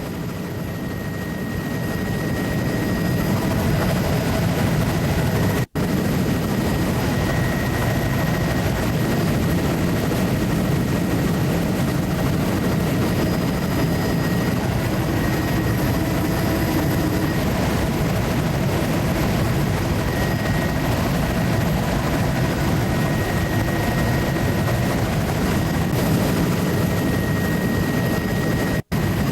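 Steady drone of a survey aircraft in level flight at about 80 mph, heard from on board, with a few faint steady whining tones over it. The sound cuts out for an instant twice, about six seconds in and near the end.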